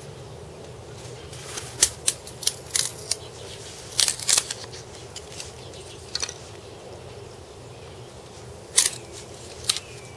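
Split wooden kindling sticks clicking and knocking together as they are picked up and handled: about ten irregular sharp taps, most in a cluster in the first half and two more near the end.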